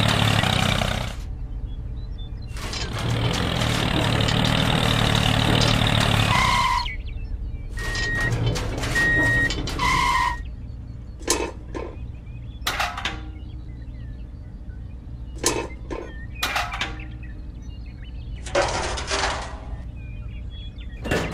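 A miniature toy tractor's motor running with a steady buzz and hum, stopping briefly about a second in and starting again, then a few short electronic beeps. After that come scattered brief knocks and scrapes over a faint hum.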